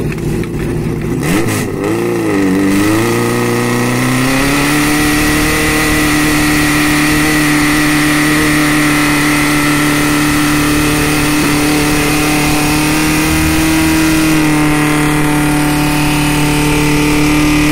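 Portable fire-pump engine revved up and down briefly, then held at full throttle as a steady high-pitched drone while it drives water through the attack hoses.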